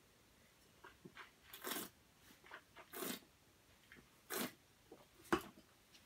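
Red wine being tasted: three short slurps as air is drawn through a mouthful of wine, then a sharp knock near the end as the wine glass is set down on a cardboard box, the loudest sound.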